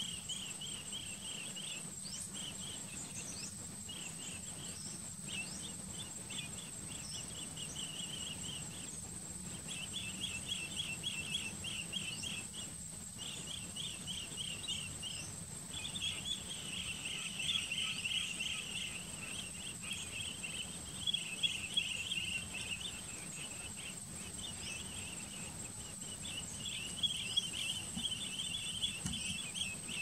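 Bee-eaters calling from a perched flock: bouts of rapid rolling, trilled chirps, busier in the second half, over a steady high-pitched insect whine.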